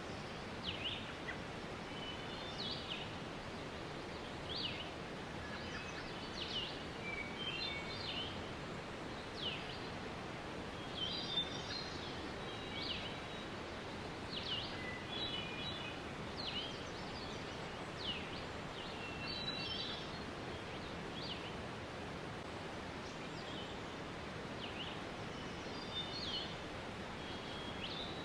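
Waterfall rushing steadily, with birds chirping over it: many short high chirps, quick downward-sweeping notes and brief trills throughout.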